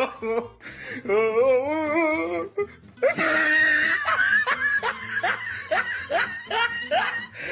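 A person laughing hard in a string of short, repeated falling bursts, with music underneath.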